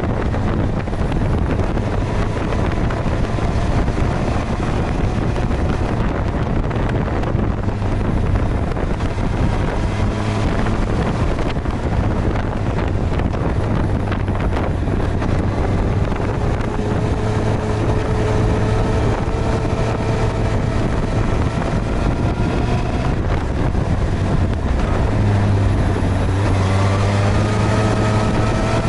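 Suzuki GSX-R1000R's inline-four engine running at speed under heavy wind rush on the microphone. Its pitch rises as it accelerates, once midway and again near the end.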